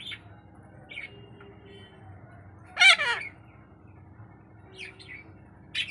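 Caged pet green parakeet giving one loud, harsh squawk about three seconds in, with a few short, faint chirps before and after.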